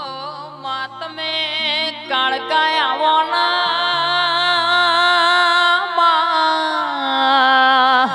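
Gujarati devotional folk music, in a passage without words: a wavering, held lead melody with a pitch glide about three seconds in, over held low bass notes that change step by step.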